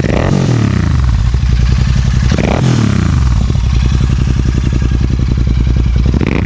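Royal Enfield Interceptor 650's parallel-twin engine, breathing through an AEW 103 exhaust with the dB killer removed, being blipped from idle. Each rev quickly falls back to a steady idle. It happens three times: at the start, about two and a half seconds in, and again at the very end. The note is loud with plenty of bass.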